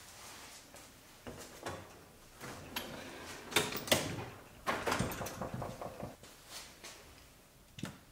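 Metal tool chest drawer being handled, its steel sockets and ratchets clattering and clicking in the tray, with a run of quick rattles partway through. A short sharp knock comes near the end as a socket rail is set down in the drawer.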